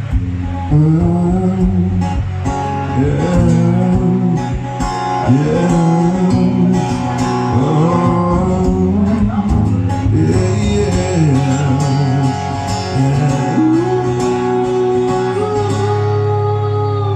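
Live band music with no words sung: an instrumental break of a country-tinged song, a lead melody bending up and down over strummed acoustic guitar and a steady bass.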